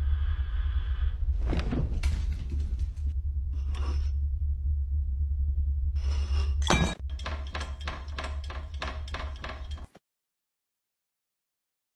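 A loud, steady deep rumble with scattered knocks over it. About seven seconds in the rumble drops away and a quick run of sharp clattering knocks and crashes follows, cutting off suddenly about ten seconds in.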